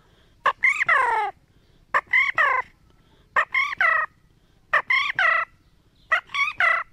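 A man imitating a bulbul's call with his mouth: five short calls about a second and a half apart, each a quick sharp note followed by a high note sliding down in pitch.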